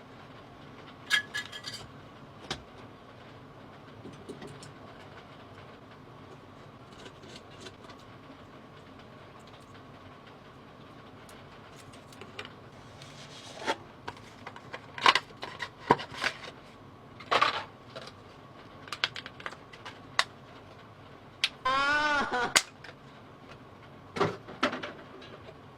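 Scattered sharp clicks and knocks of hardware being handled and fitted, over a steady low hum, with a brief pitched whirr of about a second near the end.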